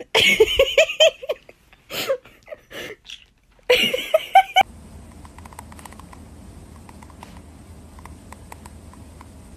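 A person laughing in short bursts for the first four and a half seconds, then a sudden cut to a low steady hum with faint ticks.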